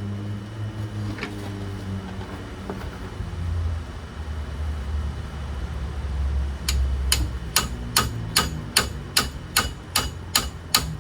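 Metal hammer strikes, about eleven evenly spaced blows at roughly two and a half a second, starting a little past halfway, as hub bolts on a car's front wheel assembly are broken loose. A low rumble runs under the first half.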